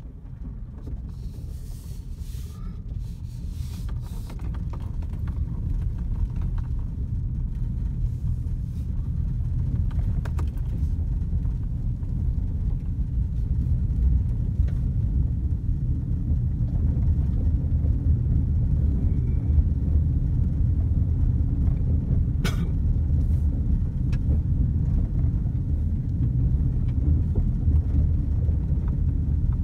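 Low rumble of a car driving on a gravel road, heard from inside the cabin. It grows louder over the first dozen or so seconds and then holds steady, with one sharp click about two-thirds of the way through.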